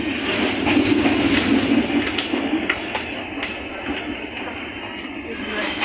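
Passenger train running on the track, heard from aboard: a steady rumble of wheels on rails, with sharp clicks every second or so.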